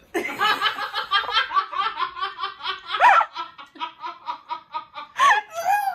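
Hearty laughter in a long run of fast, even ha-ha pulses, with a louder, higher shriek about three seconds in and another burst near the end.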